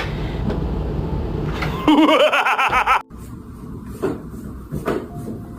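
A steady low rumble, then about a second of a person's wavering laughter that cuts off abruptly. After the cut come a few short, sharp puffs.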